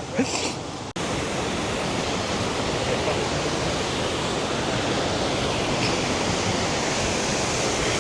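Steady rush of fast-flowing water, like a stream or waterfall. It begins abruptly about a second in, after a short voice.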